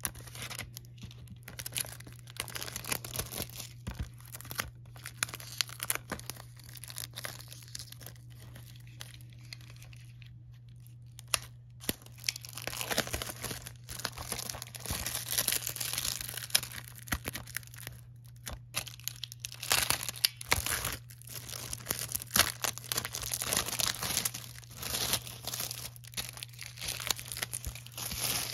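Plastic shrink wrap being torn and peeled off a Blu-ray case by hand, crinkling in irregular bursts that thin out about a third of the way in and come thick and fast through the second half. A steady low hum runs underneath.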